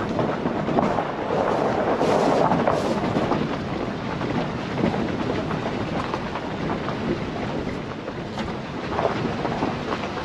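Vehicle driving along a gravel dirt road, heard from inside the cabin: steady road and engine noise, briefly louder about two seconds in.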